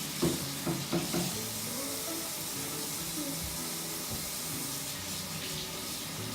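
Water running from a tap into a sink while paintbrushes are rinsed, with a few knocks in the first second or so.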